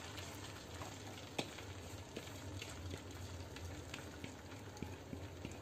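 Faint steady sizzle of hot oil in a pan as thick semolina batter is poured in, with a few sharp crackles scattered through it.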